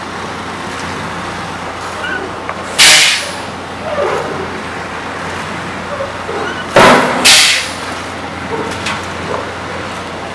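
Heavy truck and paving-machine engines running steadily, broken by short, loud hisses of released compressed air, typical of truck air brakes: one about three seconds in and two in quick succession around seven seconds.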